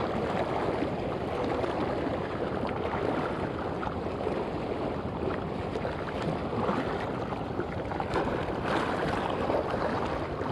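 Shallow sea water washing and lapping around rocks in a steady, unbroken wash.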